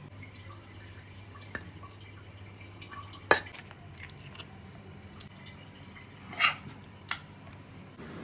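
A few sharp clicks and taps of a metal spoon against the pan of curry, four in all, with the loudest about three seconds in and a slightly longer one near the end, over a low steady hum.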